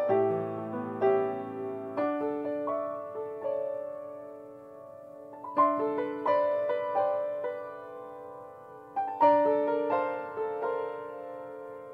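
Solo grand piano played slowly: melody notes and held chords ring and fade, with a new phrase struck more strongly about halfway through and again near the end.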